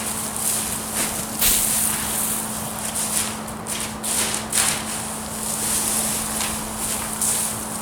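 Irregular rustling and crunching of small straw bales being pulled and stacked by hand, mixed with footsteps, over a steady low hum.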